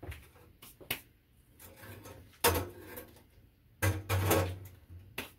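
Handling noise of work at a drop ceiling: a run of short clicks and knocks, with two louder rustling scrapes about halfway and two-thirds of the way through.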